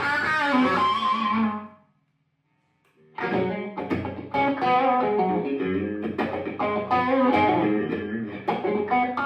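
Upgraded Fender Stratocaster-style electric guitar playing a melodic line. It stops about two seconds in for a second of silence, then comes back with a run of quickly picked single notes.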